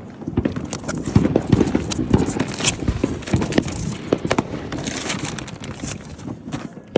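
A 140-shot firework cake firing, a fast, uneven run of launch thumps and bangs, several shots a second.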